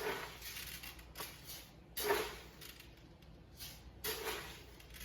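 Scoops of dry rice being poured, about five short swishing pours, the loudest about two seconds in.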